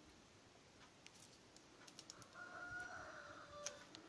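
A faint rooster crow, one call of about a second and a half starting midway through, over near-silent room tone with a few faint ticks.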